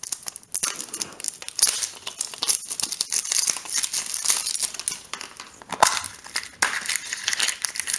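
Plastic wrapper crinkling and tearing as it is peeled off a plastic surprise egg, with a sharper snap about six seconds in as the egg's two halves are pulled apart.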